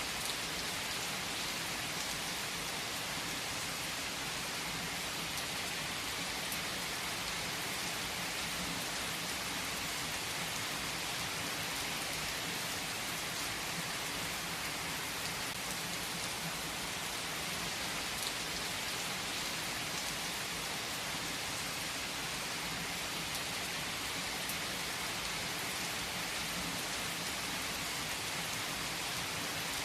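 Steady rain falling, an even hiss that does not let up, with a few faint ticks.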